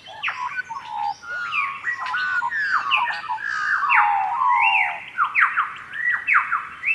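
Birds squawking and calling: a busy run of sharp chirps, most of them sliding quickly downward in pitch, several overlapping.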